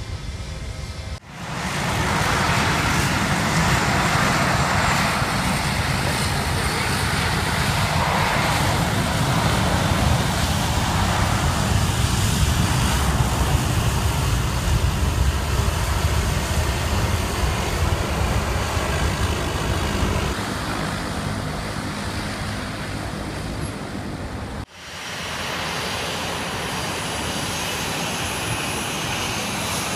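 SAS Airbus A321 jet engines at takeoff power, a loud roar that fades as the airliner rolls away down the runway. After a sudden cut, the steadier, quieter jet noise of a Boeing 737-400 moving along the runway close by, with a high whine over it.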